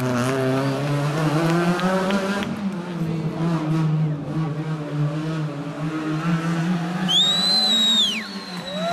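Rally car engines revving hard and rising and falling through gear changes as cars take a tight street corner. About seven seconds in, a high tyre squeal rises, holds for about a second and drops away.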